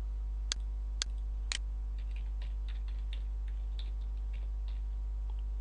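Three sharp computer mouse clicks about half a second apart, then a run of lighter keystrokes on a computer keyboard as a password is typed, over a steady low hum.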